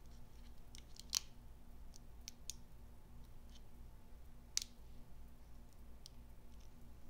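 A Leatherman multitool's small screwdriver prying at a Bic lighter's child-safety guard: faint, scattered small clicks and scrapes of metal tip on the lighter, with two sharper clicks about a second in and again about four and a half seconds in.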